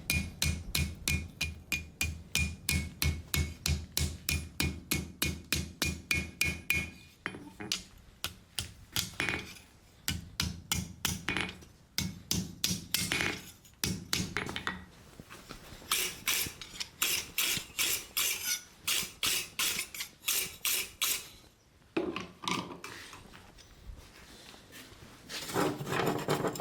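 Hand hammer striking hot steel on an anvil: a fast, even run of blows, about four a second, with a ringing tone, then slower, uneven strikes, a pause, and another quick run of blows. The steel is 5160 spring steel being forged into a knife.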